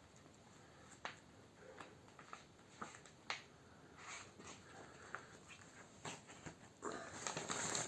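Handling noises from opening and examining a collectible: scattered light taps and clicks, with a louder rustle near the end.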